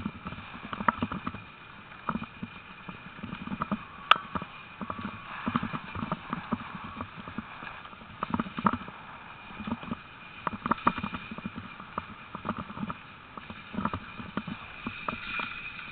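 Sled-dog team running in harness on a gravel track: a quick, irregular patter and clatter of paws and gear over the gravel, with one sharper click about four seconds in.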